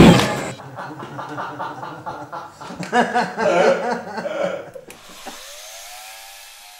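Faint voices and chuckling, then about five seconds in a rising electronic tone that swells and levels off, holding steady.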